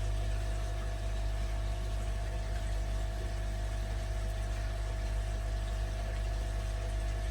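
Steady hum of a pump running: a constant low drone with a steady higher tone above it.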